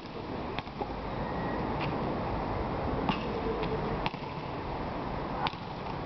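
A basketball bouncing on an asphalt court: about six short, separate thuds at uneven intervals over a steady low background rumble.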